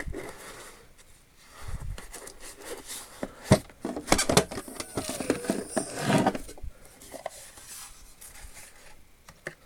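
Small metal measuring tools and their cases being handled in a wooden tool-chest drawer: rubbing and scraping with scattered clicks and knocks, the sharpest about three and a half seconds in.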